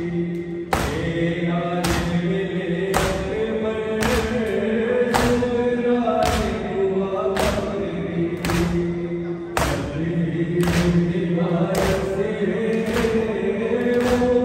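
Shia mourners chanting a noha lament together in long held notes, with rhythmic chest-beating (matam) in unison, about one beat a second.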